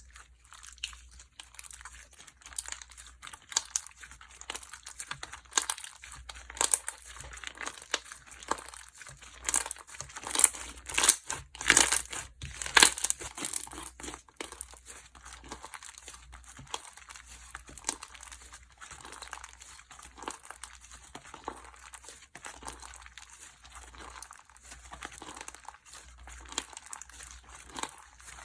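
Slime being worked by hand, squished, stretched and folded, giving a continuous run of small crackling pops and clicks. It gets louder for a few seconds in the middle.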